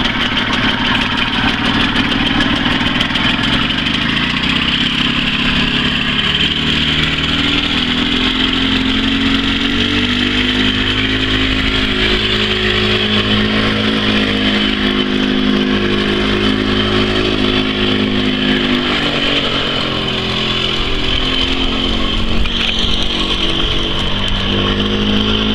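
1986 EZ-GO golf cart's gas engine running as the cart is driven. Its pitch climbs over the first few seconds, holds steady, drops away about two-thirds of the way through, then picks up again near the end.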